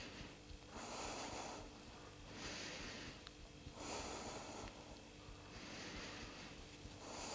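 Faint breathing from a person: about five soft breaths, in and out, roughly every second and a half.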